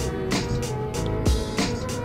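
Background music with a steady drum beat, about three strikes a second, over held notes and a bass line.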